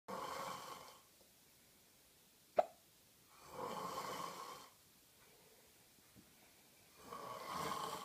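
A sleeping person snoring: three snores, each about a second long, roughly every three and a half seconds. One brief sharp sound between the first two snores is the loudest thing heard.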